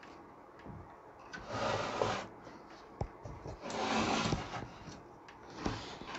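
An aluminium-backed amplifier circuit board sliding and scraping across a wooden workbench as it is turned, in two drags about a second long each, with a few light knocks.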